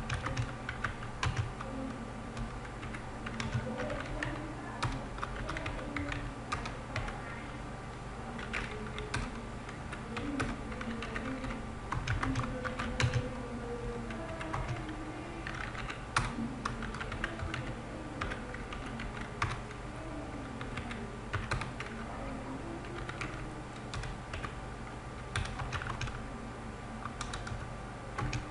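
Computer keyboard typing: irregular key clicks, several a second, over a steady low hum.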